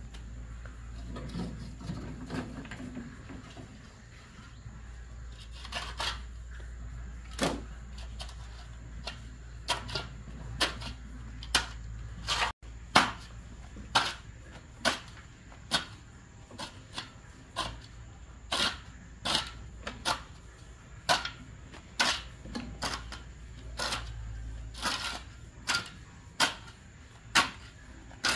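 A series of sharp knocks or strikes, scattered at first, then coming regularly at a little over one a second, over a low steady hum.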